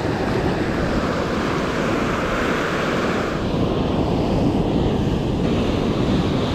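Ocean surf breaking and washing up the sand, with wind rumbling on the microphone.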